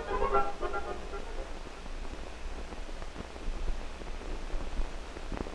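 Hiss and low hum of an old 16 mm film soundtrack, with scattered faint crackles, as the closing music dies away in the first half second. A louder click comes near the end.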